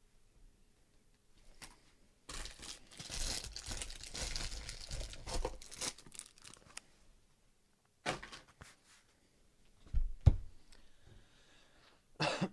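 Cellophane shrink wrap being torn and crinkled off a trading-card box for about four seconds. Then comes a click and a few thuds as the box is handled and set down, the loudest about ten seconds in.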